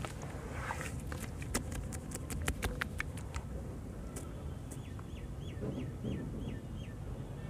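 Wet charcoal, sand and cement mix crumbled and squeezed by hands in water: a quick run of sharp, wet crunches and clicks in the first half. In the second half a bird calls about six short notes, each falling in pitch.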